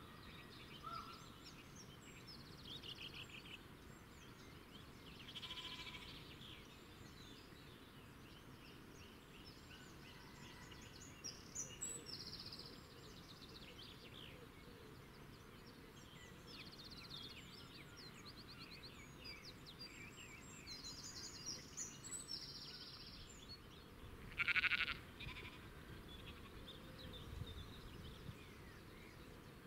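Small birds chirping and trilling in short, scattered high-pitched calls over a faint, even background hiss, with one louder, brief call near the end.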